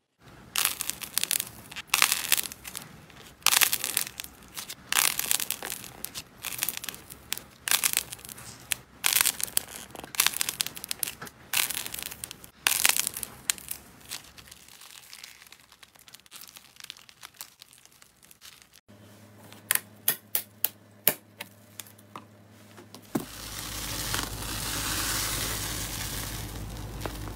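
Hands squeezing and kneading slime, with rapid crackling and popping as it is pressed. Later come a few separate clicks, and near the end a steady hiss as a foamy slime is swirled.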